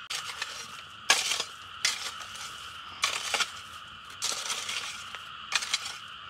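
Hard objects clinking and clattering in short bursts, about once a second, six times, over a steady high-pitched drone.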